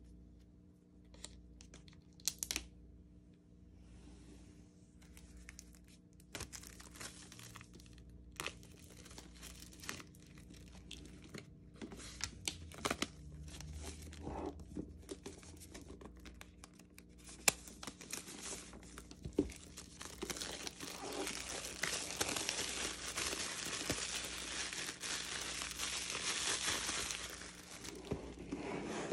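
Clear plastic shrink wrap being torn and peeled off a cardboard iPad Pro box, with scattered taps and scrapes of hands handling the box. From about twenty seconds in there is a long spell of crinkling plastic.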